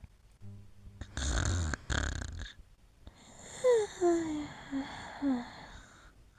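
A sleeping dog snoring twice, then letting out a long wheezy breath with several short, falling, squeaky whimpers, the sounds of a dog dreaming in its sleep.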